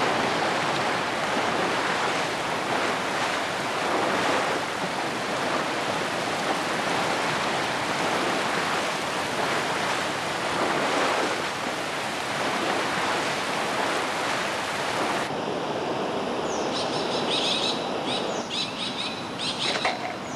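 Loud, steady rush of water. About 15 seconds in it cuts abruptly to a quieter background with birds chirping.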